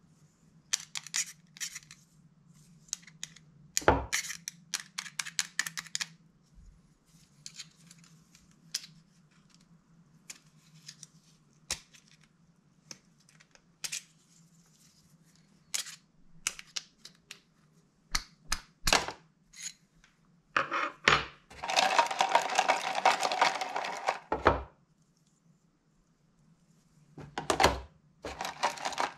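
Small parts and tools of an RC buggy being handled during disassembly: irregular clicks and knocks, then a louder continuous noise for about three seconds after the middle and another starting near the end.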